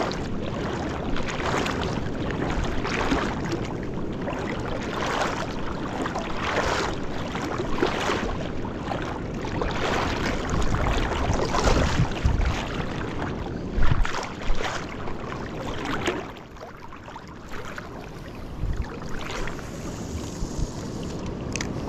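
Water swishing and splashing in a steady rhythm of about one stroke a second as someone moves through the water; it eases off about sixteen seconds in.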